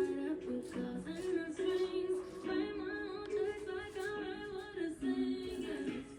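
Quiet background music with a singing voice carrying a wavering melody.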